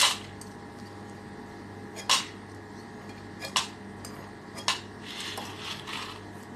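Crisp-fried uppu seedai being stirred in a nonstick kadai, the hard little rice-flour balls and the spoon clattering against the pan. There are sharp clatters every one to two seconds, with softer rattling near the end.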